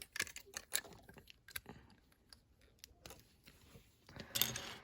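Plastic Lego bricks clicking and tapping as they are handled and pressed together, a scatter of light clicks with short quiet gaps, and a brief louder sound near the end.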